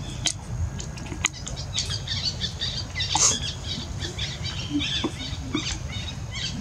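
Small birds chirping and twittering rapidly, many short high-pitched chirps and clicks, over a low steady hum.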